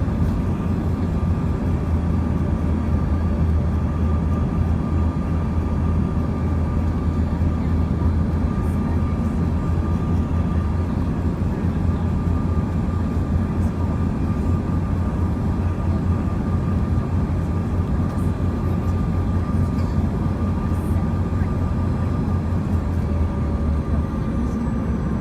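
Cabin noise of a Bombardier CRJ-200 in flight: a steady low rumble of its rear-mounted turbofan engines and airflow, with a thin steady whine on top. A fainter tone sinks slightly near the end.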